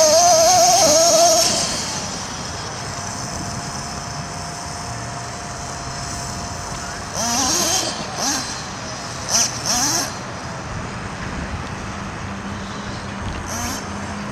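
Kyosho radio-controlled monster truck's small nitro engine revving in a high, wavering whine, then running steadily and more faintly. It revs up in two short rising bursts about seven and nine and a half seconds in, and settles to a low steady note near the end.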